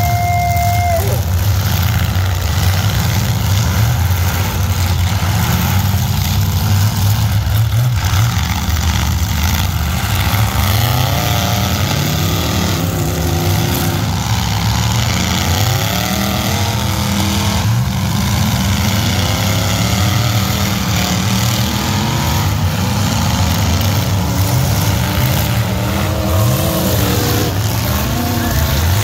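Several demolition-derby pickup trucks' engines running and revving together, their pitches rising and falling over one another as the trucks drive and collide in the dirt arena. A steady high tone cuts off about a second in.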